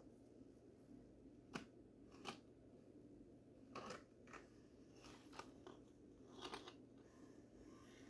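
Faint, irregular clicks and scrapes, about eight of them, as a 1/24-scale Axial SCX24 rock crawler's tires and plastic body knock and rub against rocks while it crawls, over a faint low hum.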